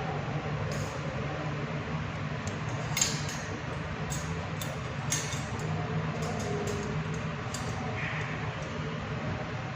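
Light metallic clinks and clicks from handling a steel wire mesh cable tray and its fittings, about ten separate strikes with the sharpest about three seconds in, over a steady low hum.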